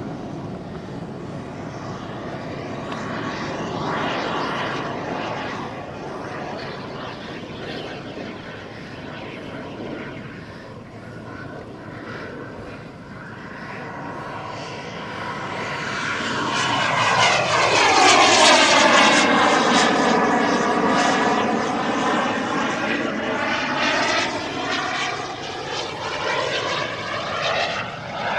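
JetCat P-220RXi turbine of a 1:3.3 scale Fiat G91 model jet in flight, a steady jet rush and whine. It swells to its loudest about two-thirds of the way through as the jet passes, with a sweeping, falling pitch, then eases off a little as it flies away.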